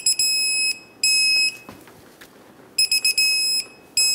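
Digital torque wrench beeping as the brake caliper bolts are tightened to 107 ft-lb: a few quick short beeps, then two longer steady beeps as the set torque is reached. This happens twice, once for each bolt.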